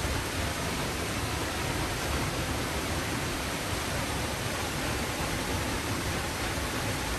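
Awosting Falls, a 60-foot waterfall plunging into a pool: a steady rush of falling water.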